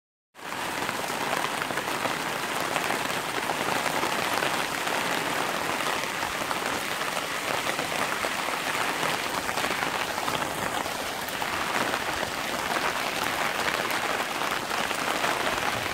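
Steady rain falling on wet pavement: an even hiss of many drops.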